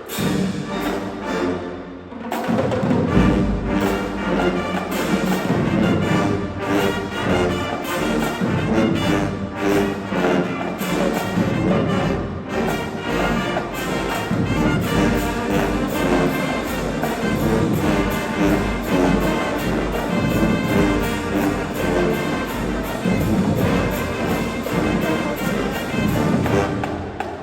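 High school marching band playing, brass section carrying the tune; heavy low drumming joins about two seconds in.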